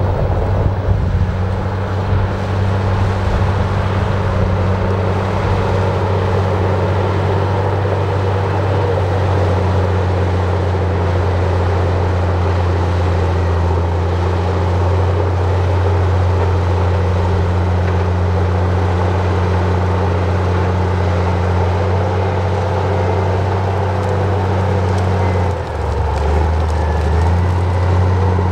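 Heavy earthmoving machine's diesel engine running steadily at working speed. Near the end its note drops lower for about two seconds, then comes back up.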